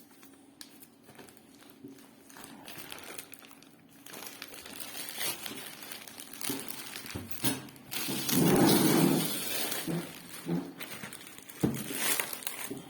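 Paper and plastic packaging rustling and crinkling as it is handled, with a few small knocks, and a louder burst of rustling about eight seconds in.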